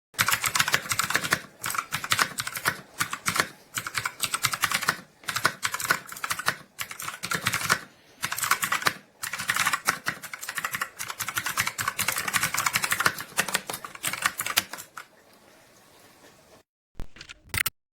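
Rapid typing on a TECURS 60% mechanical keyboard with clicky blue switches: runs of fast key clicks broken by short pauses, stopping about fifteen seconds in, then one brief burst of clicks near the end.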